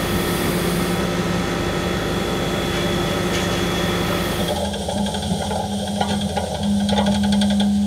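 Pierce aerial ladder truck running its ladder hydraulics: a steady mechanical hum with an engine underneath as the ladder controls are worked and the 105-foot ladder is raised. The hum shifts to a different, higher steady tone about four and a half seconds in.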